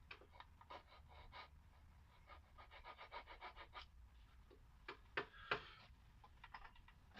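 Hand tool working a piece of beech: runs of short, quiet scraping strokes, with two sharper knocks about five seconds in.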